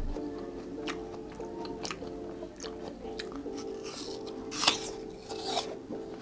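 Biting into a slice of raw apple: one sharp crunch about four and a half seconds in and a second crunch about a second later, with smaller crisp clicks of chewing around them.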